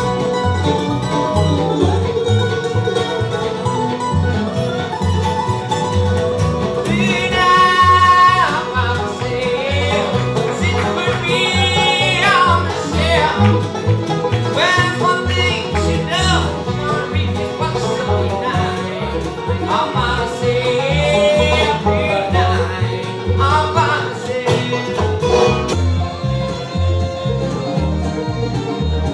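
Live bluegrass band playing an instrumental break: mandolin picking the lead over upright bass, guitar and banjo. Fiddle notes slide up and down about seven and again about twelve seconds in.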